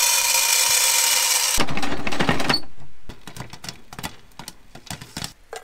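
A loud steady hiss for the first two and a half seconds, then popcorn kernels popping in a covered stovetop pan: a run of sharp pops, several a second, starting about three seconds in.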